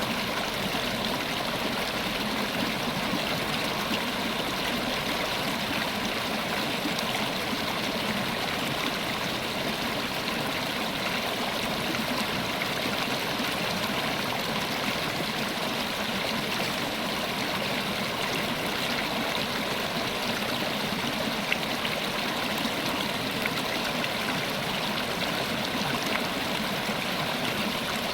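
River water flowing and rippling over stones, a steady even rush with a faint gurgle.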